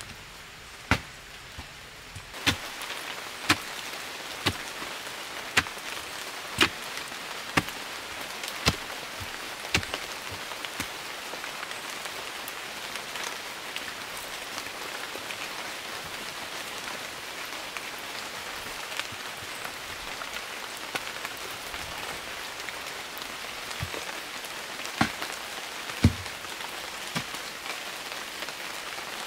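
Digging tool chopping into earth, a sharp knock about once a second for the first ten seconds, then a few more strikes near the end. Under it a steady hiss of rain.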